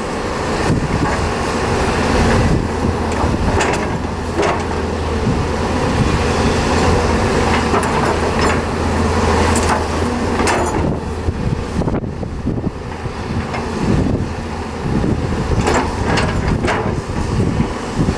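Hyundai excavator working in mud: the diesel engine runs steadily and pulls harder for a few seconds in the middle, with sharp knocks from the working machine now and then.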